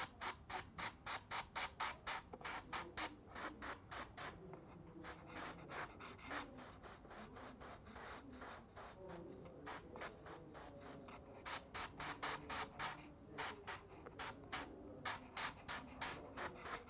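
Airbrush spraying paint in short, rapid hisses, about five a second, with a couple of brief lulls.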